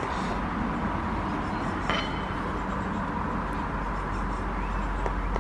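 Steady rumbling noise of passing traffic, with one sharp clink about two seconds in.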